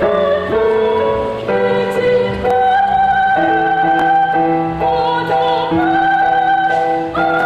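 A woman singing solo through a handheld microphone, holding long sustained notes that step between pitches every second or two.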